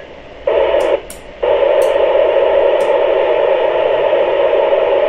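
Amateur radio FM receiver hiss: a noisy signal through the ISS voice repeater with no readable voice in it. It starts about half a second in, breaks off briefly about a second in, then runs on steadily.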